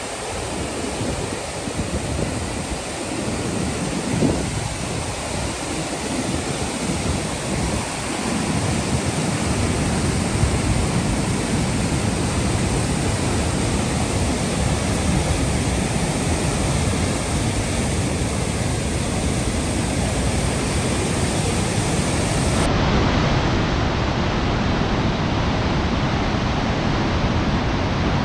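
Wind rushing over the microphone of a moving motorbike: a loud, steady hiss that gusts in the lower range for the first several seconds, then evens out.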